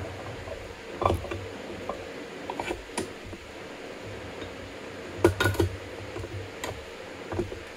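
Light metal clicks and clinks as a Case 207D connecting rod is worked on an adjustable hand reamer, lifted off, and the reamer handled. There is a quick cluster of clinks about five seconds in, over a low steady hum.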